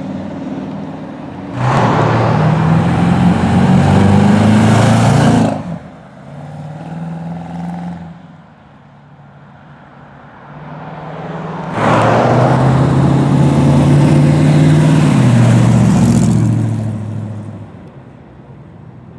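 Two sports cars accelerating hard away from the meet, one after the other: the first comes in suddenly about two seconds in and runs loud for about four seconds, the second about twelve seconds in for about four and a half seconds, with a quieter engine passing between them.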